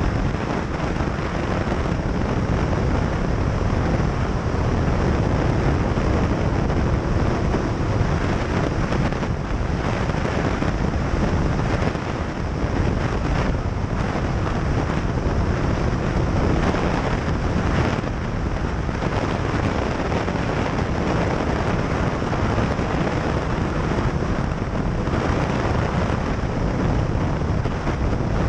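Wind buffeting the microphone of a moving motorcycle, with the engine and road noise underneath, loud and steady.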